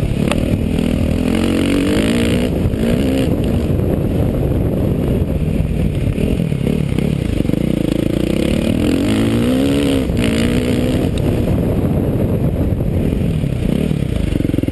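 KTM dirt bike engine, heard from on board while riding, revving up and down with the throttle so that its pitch rises and falls repeatedly.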